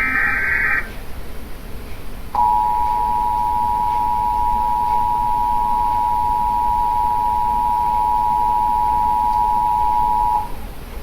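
Emergency Alert System test tones: the last SAME header data burst, a brief digital screech under a second long, then after a short pause the EAS two-tone attention signal, a steady dual tone held for about eight seconds that cuts off sharply.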